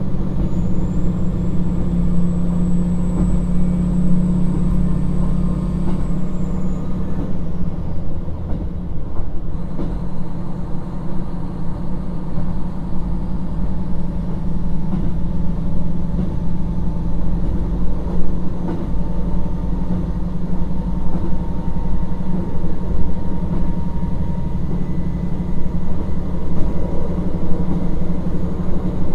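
Running noise inside a KiHa 40 1700-series diesel railcar under way: the steady low drone of its diesel engine and the running gear on the rails. A thin high-pitched whine is heard over it for the first six seconds or so.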